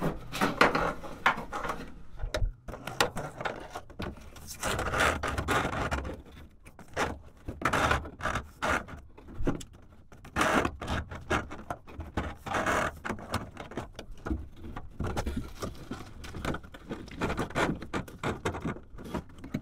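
Flexible corrugated plastic conduit with cables inside, fed by hand through holes in a van's bare steel pillar and roof rail, scraping and clicking against the metal in irregular bursts.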